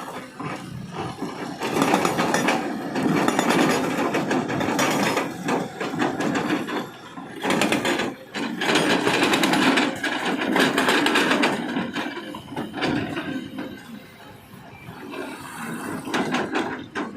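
HMB680 box-type hydraulic breaker hammer on a Kobelco excavator pounding rock with rapid repeated blows, in runs of a few seconds with short pauses between; the hammering is weaker near the end.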